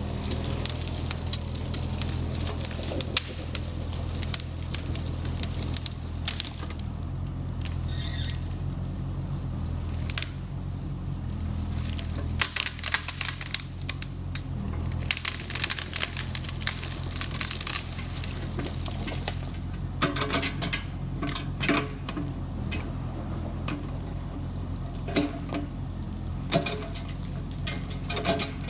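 Kubota KX71-3 mini excavator's diesel engine running steadily, with scattered cracks and snaps over it that come thickest in the middle and again in the last third.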